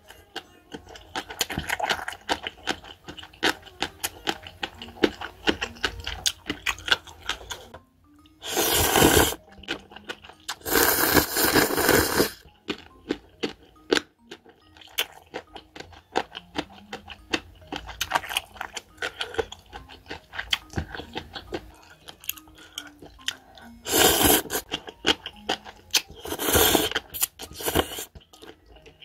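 Noodles from a bowl of cup ramen being slurped in four loud bursts, over light background music and a stream of small clicking and chewing sounds.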